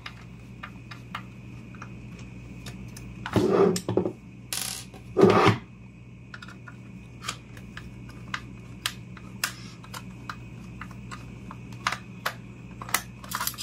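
Small metallic clicks and taps of a screwdriver and screws on an oscilloscope's sheet-metal chassis during disassembly, with a few louder handling noises between about three and six seconds in.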